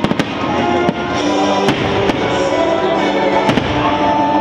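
Fireworks bursting over music played along with the show: a quick cluster of bangs at the start, then single booms every second or so.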